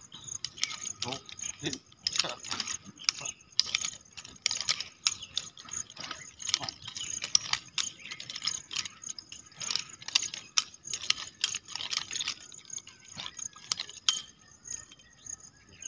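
Nunchaku being swung and caught in a continuous strike routine: quick, irregular clacks and rattles of the chain and sticks, several a second.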